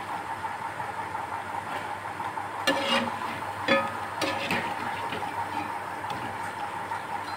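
Mango pakoras sizzling as they deep-fry in hot oil in a metal pan, with a slotted metal spoon clinking against the pan about three times a few seconds in as they are turned.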